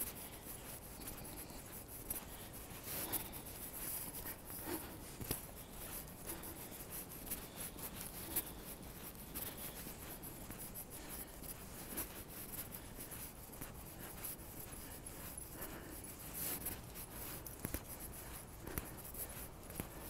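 Faint scratchy rustling with small irregular clicks, the sound of a phone's microphone being rubbed and handled while its holder walks.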